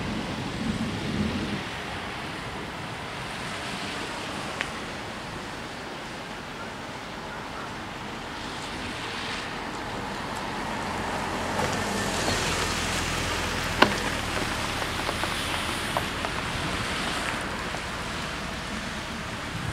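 Wind buffeting the microphone at the start, then a car approaching from behind and driving past, its tyre and engine noise growing louder through the second half. One sharp tick is heard near the loudest part.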